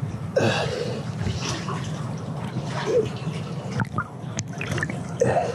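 River water sloshing and gurgling around an action camera dipping in and out of the water, with a few short bubbly blips.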